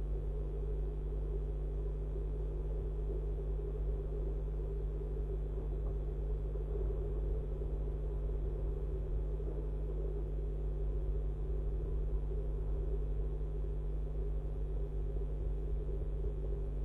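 Steady low rumble with a constant hum, unchanging throughout, with no distinct calls or knocks standing out.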